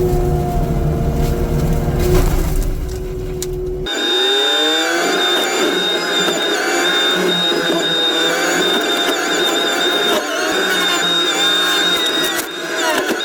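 Heavy land-clearing machinery running. A deep engine sound switches abruptly, about four seconds in, to a higher, steady whine whose pitch sags briefly under load a couple of times near the end.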